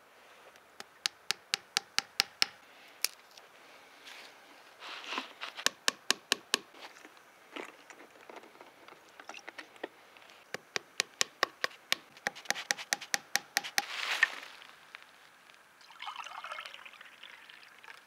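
Hammer tapping a wooden peg into the tap hole of a birch tree to plug it: quick, sharp knocks several a second, in three runs. A short burst of noise follows near the end.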